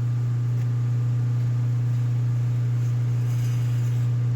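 Steady low machine hum, unchanging in pitch and level, with a few faint clicks from handling the cable and crimp.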